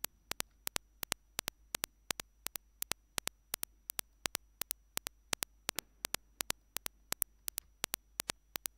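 Sharp computer-mouse clicks, about three a second, over a faint low hum.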